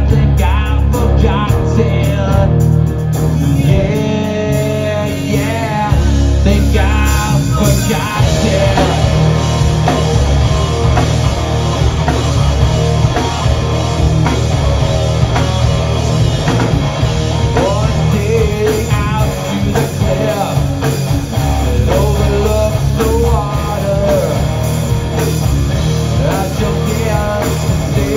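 Live rock band playing loud and without a break: distorted electric guitars, bass guitar and a drum kit.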